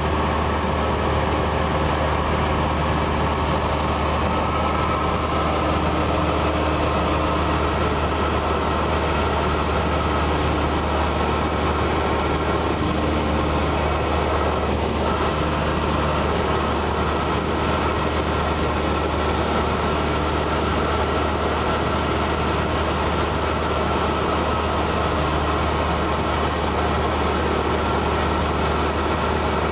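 Cabin drone of a Cessna 172S in flight: its Lycoming IO-360 four-cylinder engine and propeller running steadily, heard from inside the cockpit.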